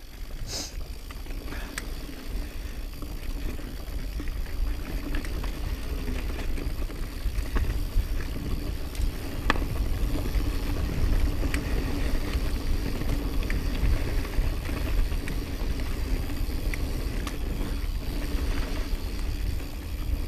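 Intense Recluse mountain bike ridden down a dirt singletrack: steady wind rumble on the microphone and tyre noise, with scattered sharp clicks and rattles from the bike over the rough trail.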